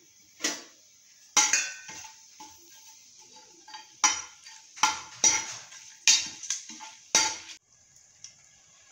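A metal spoon stirring whole spices in hot oil in a pressure cooker pot, knocking and scraping against the metal in about eight sharp, irregular clanks. A faint sizzle of the oil lies between them.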